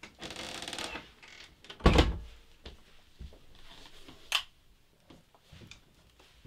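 A short rattling in the first second, then one heavy thud about two seconds in and a sharp click a little after four seconds.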